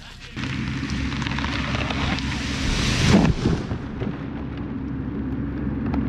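A felled tree crashing to the ground, the loudest hit about three seconds in, with branches and leaves breaking and swishing around it. An engine runs steadily underneath throughout.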